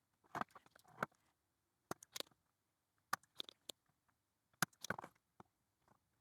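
Scattered light clicks and taps of small tools and parts being handled on a workbench, about eight irregular knocks, some with a brief rustle, during work on a circuit board.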